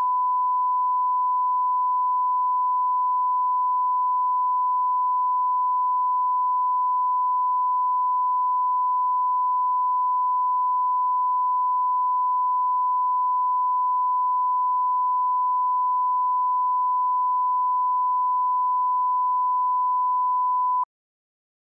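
Broadcast line-up test tone played with colour bars: one steady, unbroken beep at a single pitch that cuts off suddenly near the end.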